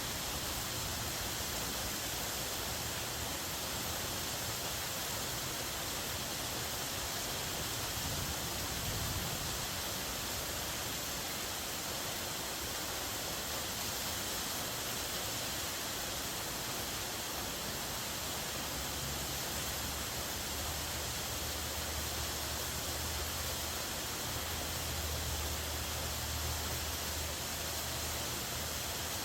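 Steady, even rush of a waterfall. A low rumble under it comes and goes, strongest in the last third.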